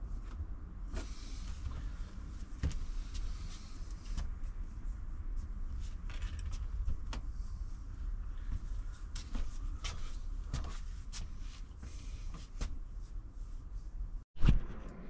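Scattered light clicks and knocks of hands fitting a compact fridge into a van's kitchen cabinet, over a low steady rumble. Near the end the sound cuts out briefly, then one sharp loud knock.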